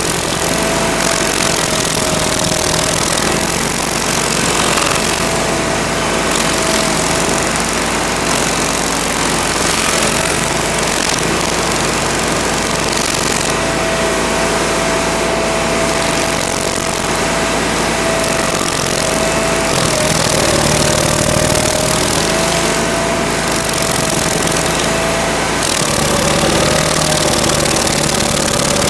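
Toro STX-38 stump grinder running hard, its toothed cutting wheel grinding into a tree stump and throwing wood chips: a steady engine drone under a continuous rasping grind. The engine pitch sags briefly a couple of times late on as the wheel bites in.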